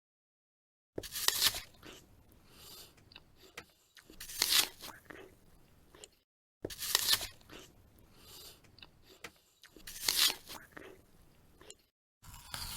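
Four crisp bites into a raw apple, each a loud crunch followed by a couple of seconds of quieter, wet chewing, the bites about three seconds apart. A steady hiss-like noise starts just before the end.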